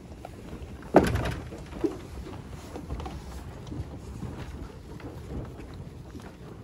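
Icelandic sheep eating hay at a feed trough: a steady, dense rustling and crunching of hay being pulled and chewed. About a second in comes one loud thump, followed shortly by a smaller knock.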